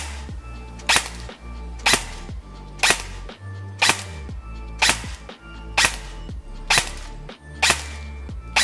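Evolution Airsoft Reaper XS electric airsoft gun (V2 gearbox, E100 spring) firing single shots through a chronograph, one sharp crack about every second, some nine shots in all. The shots come out at about 1 joule, roughly 330 fps.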